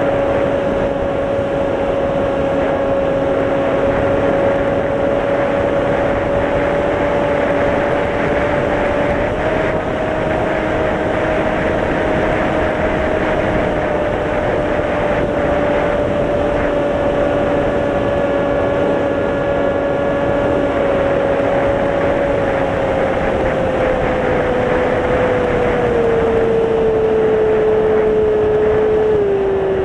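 Electric motor and propeller of a Mini Drak FPV model plane, heard from the onboard camera, with a steady high whine over rushing wind. The pitch steps up slightly about a third of the way in, then drops in several steps near the end as the throttle comes back.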